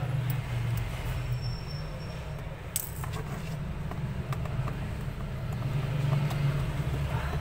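Plastic housing of a Q Mobile Q130 Classic keypad phone clicking as it is pried and pressed apart, with one sharp snap about three seconds in and a few fainter ticks, over a steady low hum.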